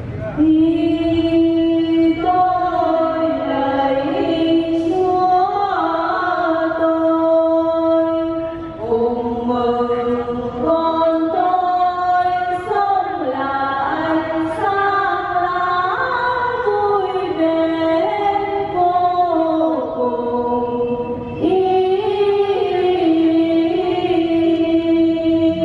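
A choir singing a slow hymn-like melody of long held notes, in phrases with short breaks between them.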